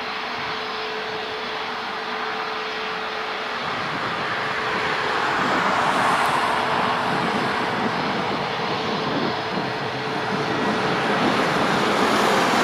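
An Airbus A320neo's CFM LEAP-1A turbofan engines at high thrust during the takeoff roll, heard from behind as the jet accelerates away. A steady engine hum with a held tone grows louder and rougher from about four seconds in as the thrust and jet exhaust noise build.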